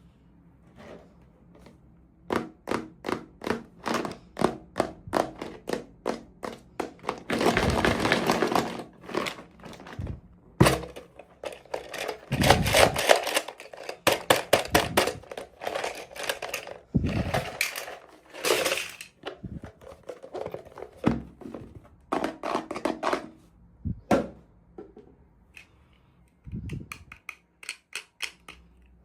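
Small plastic toy pieces and packaging being handled during an unboxing: a quick run of sharp clicks and taps, about two to three a second, with several stretches of crinkling plastic in between.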